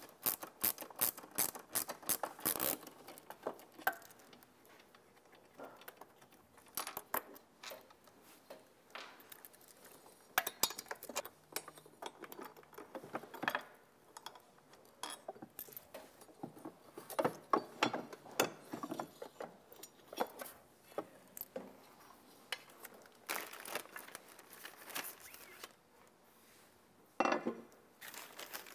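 Ratchet socket driver clicking in quick strokes as the last mounting bolts of a golf-cart motor controller are backed out, then scattered metallic clinks and rattles of bolts and parts being handled. A plastic bag crinkles near the end.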